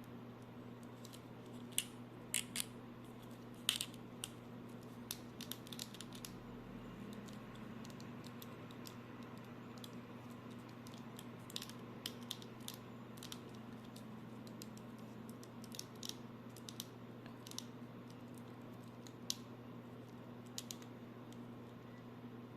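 Scattered light clicks and taps, irregular and a few at a time, over a steady low hum: the small sounds of a plastic action figure and its packaging being handled.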